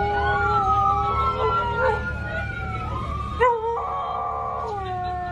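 Dog howling: long drawn-out notes that slide slowly up and down, several overlapping at once, with a short sharp cry about three and a half seconds in.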